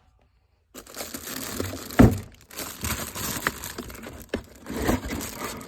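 Packaging being handled and crinkled while a cordless tool kit is unboxed, with one sharp thump about two seconds in and scattered small clicks. It begins with under a second of dead silence.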